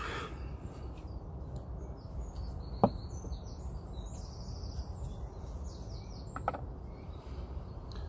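A single sharp tap on a glass kitchen scale about three seconds in as it is switched on, then a softer knock near the end as a small pocket knife is set down on the glass. A steady low hum and faint bird chirps run underneath.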